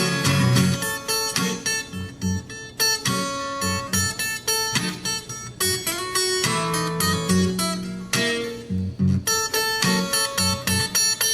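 Acoustic guitar playing an instrumental break in a country-blues song, with quick picked treble notes over a steady run of bass notes.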